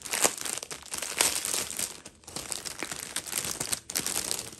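Clear plastic bags crinkling and rustling as hands handle and pull apart a bag of diamond painting drill packets, in irregular surges of crackling.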